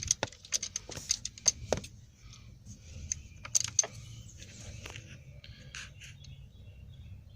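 Small metal clicks and clinks of a screwdriver and a freshly loosened ignition-switch screw being worked and handled: a quick run of sharp ticks in the first two seconds, then rustling with a few more clinks.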